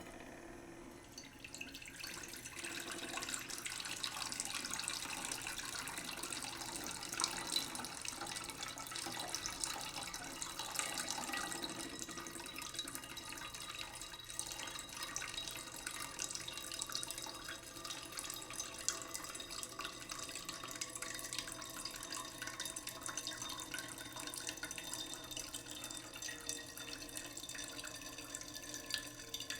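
Water running steadily, as from a tap, with a light splashing and dripping texture.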